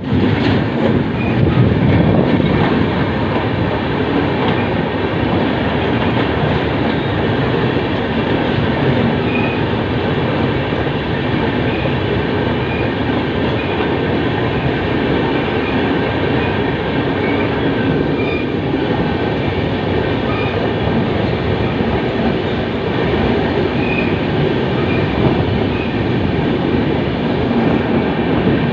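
Howrah Ispat Express passenger train running at around 130 km/h: a loud, steady rumble and clatter of wheels on the rails, slightly louder in the first few seconds.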